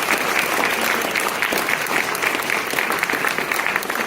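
Audience applauding: many hands clapping at once in a dense, steady patter that begins to thin out near the end.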